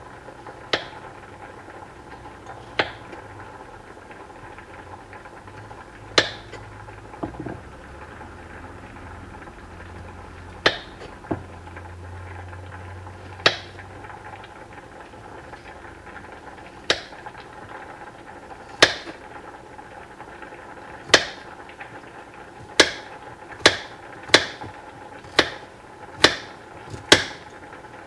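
Kitchen knife chopping a peeled carrot into small discs, each cut ending in a sharp knock. The knocks come a few seconds apart at first, then quicken to about one a second near the end.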